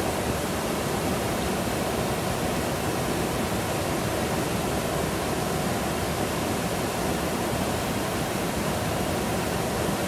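Small two-tier waterfall pouring over a rock ledge into a shallow pool: a steady, even rush of falling water.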